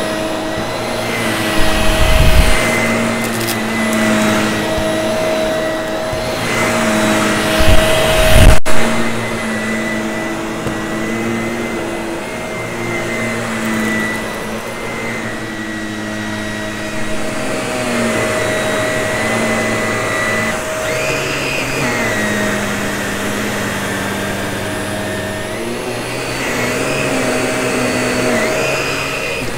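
Vacuum cleaner running, its motor note stepping up and down in pitch every few seconds as the airflow changes. Loud bumps with crackle come about 2 and 8 seconds in, as crunchy debris is picked up.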